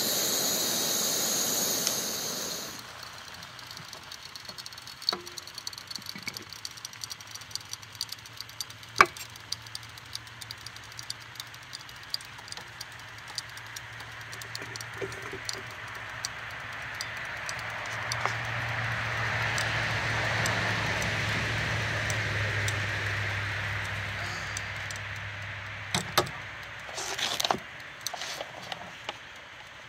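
A road vehicle passing, its road noise swelling for several seconds and then fading, with a steady low hum under it. A loud hiss at the start stops suddenly about three seconds in, and light clicks and rattling come and go, bunching into a clatter near the end.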